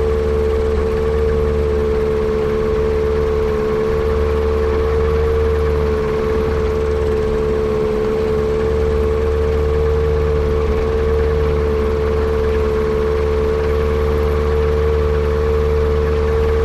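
Yamaha Apex four-cylinder four-stroke engine in a Kitfox airplane running steadily at constant speed, with a strong steady drone over a low rumble.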